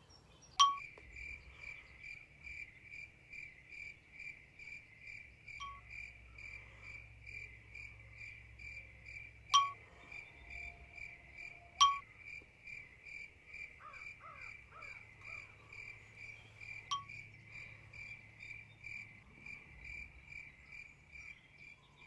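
A steady high chirp repeated about twice a second, like a calling insect, with five sharp clicks over it, the loudest about a second in and near the middle, and a faint bird warble near the middle.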